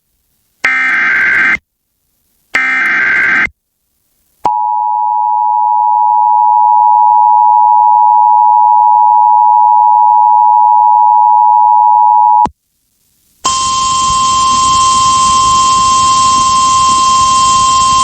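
Emergency Alert System broadcast tones. First come the last two of three short warbling data bursts of the SAME header, about a second each. Then the steady two-tone attention signal holds for about eight seconds, and after a second's gap the single-pitch NOAA Weather Radio warning tone comes in over radio hiss.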